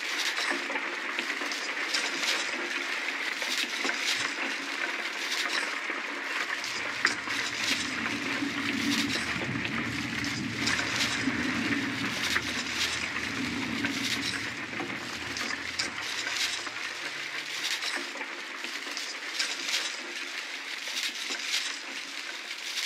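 Dark Viking-style ambient background music: a dense crackling, hissing texture, joined by a low drone that comes in about six seconds in and fades out around seventeen seconds.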